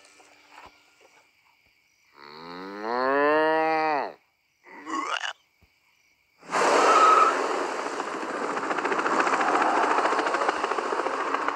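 A cow's long moo, rising and then falling in pitch, followed by a shorter second call. About six seconds in, a loud steady rushing noise of a helicopter and cars starts up and carries on.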